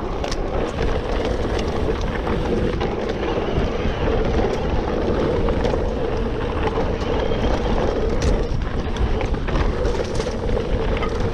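Mountain bike riding fast down a dirt forest singletrack: steady wind rush on the microphone and tyre noise, with scattered clicks and rattles from the bike.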